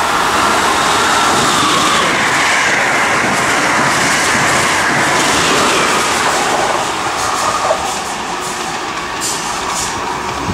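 Amtrak Acela Express high-speed trainset passing through the station at speed: a loud, steady rush of wheels on rail. It eases off after about seven seconds as the train moves away.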